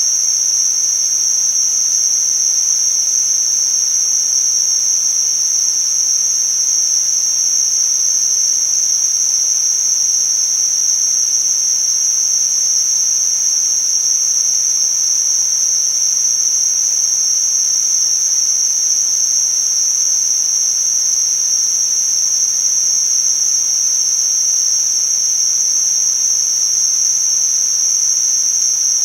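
Tinnitus-masking noise: a steady, high-pitched hiss held in a narrow pitch band, unbroken and without any pulsing or change.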